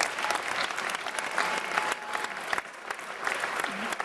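Audience applauding: many hands clapping in a dense patter, with a few voices among it.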